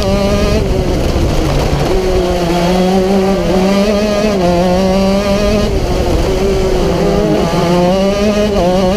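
Onboard sound of a racing kart's engine running hard at high revs, its pitch dipping briefly several times and climbing back as the kart slows for corners and accelerates out of them.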